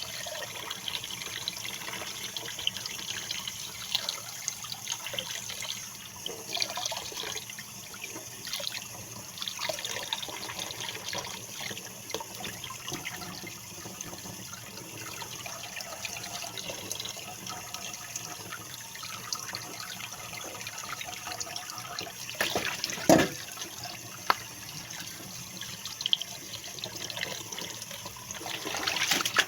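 Tap water running into a sink while a pompano is cleaned, with small irregular scrapes and splashes. One loud sharp knock comes about three-quarters of the way through.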